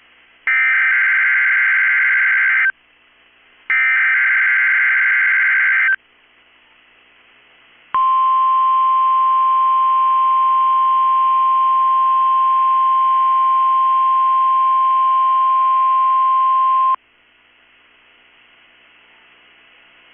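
NOAA Weather Radio alert signal for a Required Weekly Test. First come two roughly two-second bursts of warbling SAME digital header data tones, the last two of a set of three. After a short pause comes the steady, single-pitch 1050 Hz warning alarm tone for about nine seconds, which cuts off sharply.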